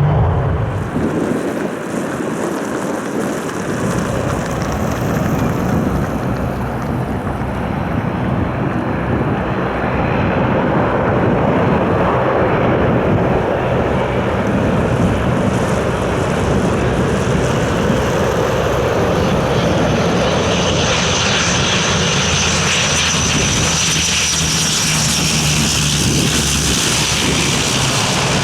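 Icelandair Dash 8-200's twin turboprop engines running as it arrives, a steady loud propeller and engine sound. From about two-thirds of the way in, a high turbine whine rises over it.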